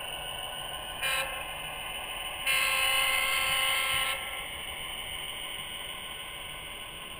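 Model diesel locomotive's DCC sound decoder sounding its horn: a short toot about a second in, then a longer blast of about a second and a half, over the steady running sound of the locomotive.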